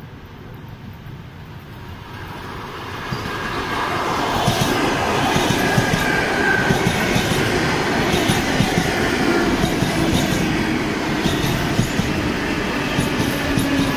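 ЭП2Д electric multiple unit approaching and passing close by. Its rolling noise grows over the first few seconds, then the wheels clatter over the rail joints, with a faint whining tone that drops slightly in pitch as the cars go by.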